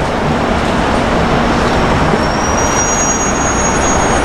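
Steady running noise of a stationary 583 series sleeper electric multiple unit, its on-board equipment humming at the platform. A faint high-pitched whine joins about halfway through.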